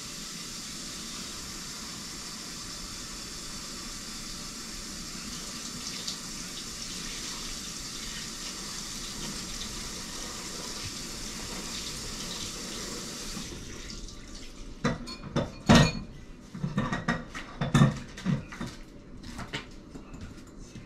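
Water running steadily from a tap, shut off about two-thirds of the way through, then a series of sharp knocks and clatters, the loudest two a couple of seconds apart.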